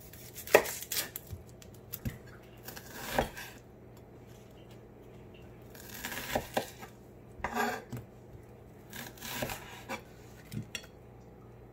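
Kitchen knife cutting an onion into wedges on a wooden cutting board: irregular knocks of the blade meeting the board, spread a second or more apart, with brief scraping and crunching between them.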